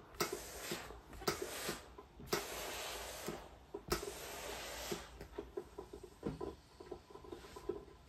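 Steam iron pressing through a damp ironing cloth onto crocheted motifs, hissing in several bursts of steam over the first five seconds. After that comes a scratchy rustling of the iron and cloth moving over the work, with many small ticks.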